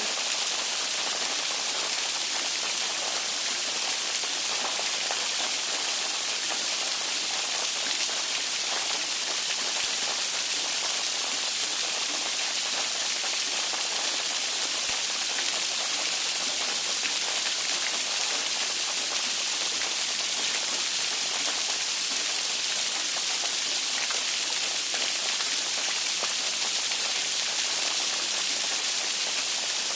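Steady rain: a dense, even hiss of many drops that holds at the same level throughout, brightest in the high range with little low rumble.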